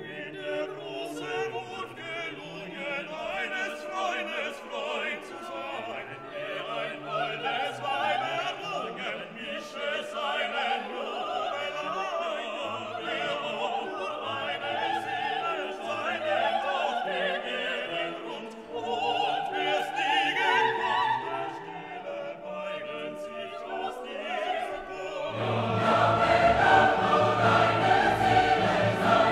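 Background music: classical operatic singing with a choir and orchestra, swelling louder and fuller near the end.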